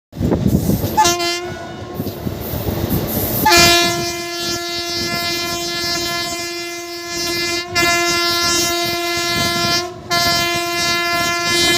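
Indian Railways electric locomotive's horn sounding one steady note: a short blast about a second in, then a long blast from about three and a half seconds, broken twice for a moment. Under it runs the rumble and rail clatter of the moving train.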